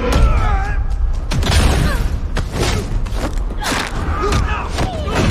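Fight sound effects: a rapid series of punches, hits and thuds with grunts and shouts from the fighters, over a low, rumbling music score.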